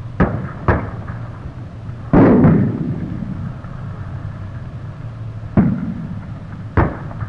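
Battle-exercise gunfire and blasts: two quick sharp reports at the start, a heavier, longer-ringing blast about two seconds in, then two more single reports near the end, over a low steady hum.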